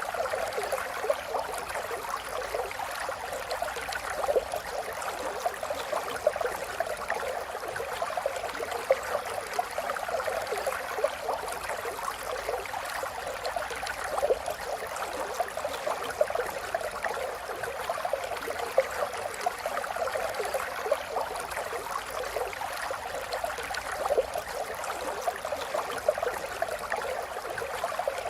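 River water flowing: a steady rush of running water thick with small splashes and gurgles, with little low rumble.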